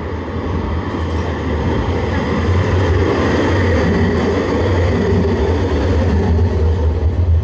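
A low-floor Saint-Étienne tram passing close by on street track, its running noise growing louder over the first few seconds as it comes near and then staying loud with a steady low rumble.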